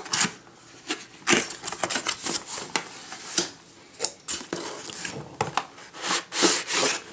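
Cardboard box being opened and handled: a string of short scrapes, rustles and knocks of cardboard and paper, with louder bursts about a second in and near the end.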